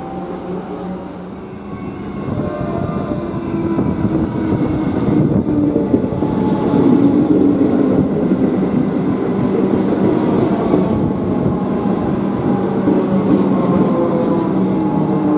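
Melbourne Metro electric suburban train running alongside the platform, with wheel and rail noise and a whine. It grows louder about two seconds in, and the whine falls slightly in pitch later on as the train slows.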